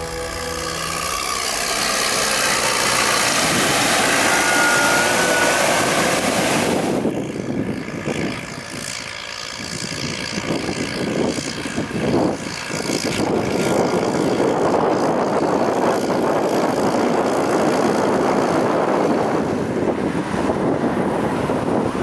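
New Holland T7 tractors hauling loaded silage trailers through floodwater: engines running under the steady rush and splash of water churned up by the wheels. The sound changes abruptly about seven seconds in, with a few louder splashes a few seconds later.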